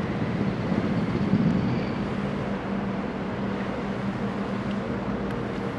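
Steady low hum of a fishing boat's diesel engine as the boat comes in to the quay, over a constant rushing background.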